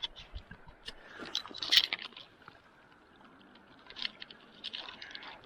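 Water splashing and wet handling noises as a rainbow trout is let go back into the river, in short irregular bursts, the loudest about two seconds in, over the faint steady hiss of flowing water.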